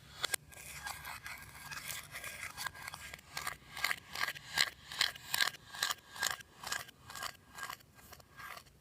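Slime being squished and worked in a steady rhythm of moist crackling strokes, about two to three a second, getting louder partway through.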